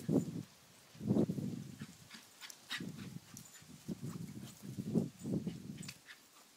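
Uneven thudding and rustling of running footfalls on grass, coming in clusters, as a small terrier and its chaser run about the lawn.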